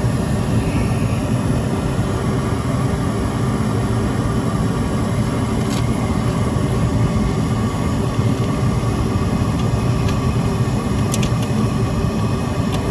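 Heating and air-conditioning unit running close by: a loud, steady rumble with a faint steady hum.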